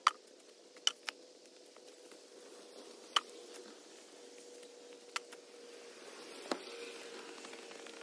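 Square-bladed metal shovel working dirt and stones, giving a handful of sharp scrapes and clinks as the blade strikes, over a faint steady hum.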